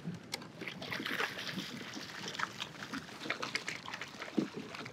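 Irregular splashing with scattered knocks and clicks as a hooked fish thrashes at the surface while being landed beside a kayak.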